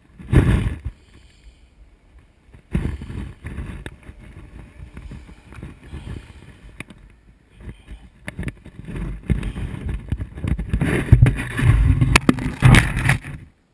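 Wind buffeting an action camera's microphone in irregular gusts, strongest about nine seconds in, with a few sharp knocks.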